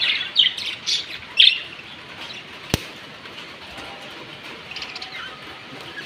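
Budgerigars chirping in a quick burst over the first second and a half, with a few fainter chirps later. A single sharp snip a little before the middle, from scissors cutting a plastic cable tie on a wire cage.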